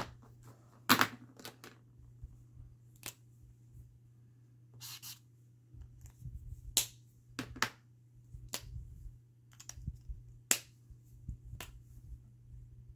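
Handling noise: irregular light clicks and knocks of small hard objects being moved about, about a dozen of them, with the sharpest about a second in, over a steady low hum.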